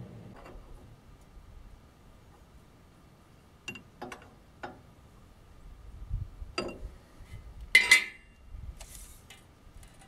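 Metal hand tools clicking and clinking against the steel blade-guide assembly of a band sawmill: a few light sharp clicks, then a louder ringing metallic clink near the end.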